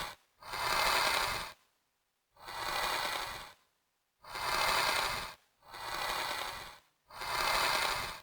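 A pitch-shifted kitchen recording played as a series of scraping strokes, like sandpaper or something being dragged. There are five strokes of about a second each, with short silent gaps between them.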